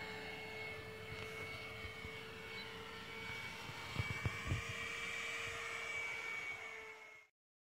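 Radio-controlled model aircraft flying by, its motor giving a steady whine. There are a few short knocks about four seconds in, and the sound cuts off abruptly near the end.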